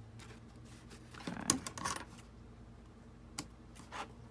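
Light handling of a cardboard box and masking tape: a short rustle about a second and a half in, then a few sharp clicks, over a faint steady hum.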